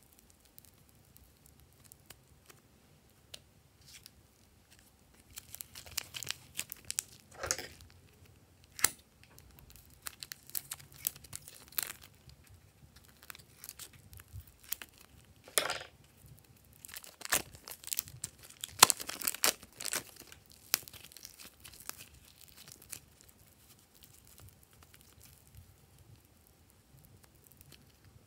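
Thin plastic bag of modelling clay crinkling and rustling as it is handled and cut open with scissors, in irregular crackly bursts with a couple of longer rasping stretches through the middle.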